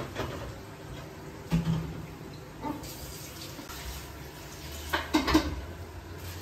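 Steady rushing of running tap water in a kitchen, with a few knocks and clinks of kitchenware about a second and a half in and again around five seconds in.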